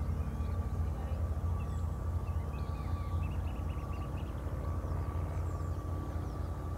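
Distant ATR 72-600 turboprop landing: a steady low rumble with an even engine tone over it. Small birds chirp faintly about two to three seconds in.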